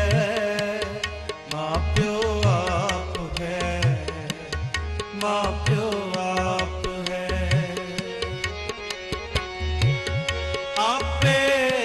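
Instrumental kirtan passage: tabla played in a steady, busy rhythm, with low bass-drum strokes that bend up in pitch, under a held, wavering melody line.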